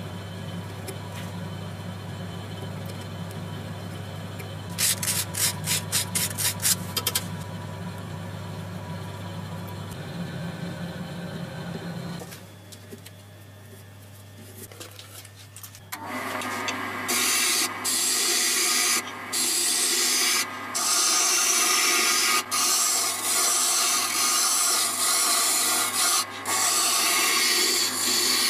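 A wooden handle spinning on a wood lathe, burnished by hand: a loud rasping hiss that starts about sixteen seconds in and breaks off briefly several times. Before it there is a steady low hum, with a quick run of sharp clicks about five seconds in.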